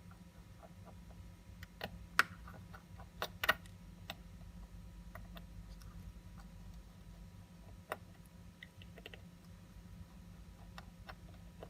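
Irregular sharp clicks and taps of small metal watchmaker's tools handling the parts of a vintage FHF 73-4N manual-wind watch movement, the loudest cluster about two to three and a half seconds in, over a low steady hum.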